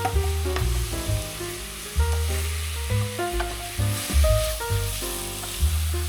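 Food sizzling in a frying pan, a steady hiss under background music with a changing bass line and melody notes.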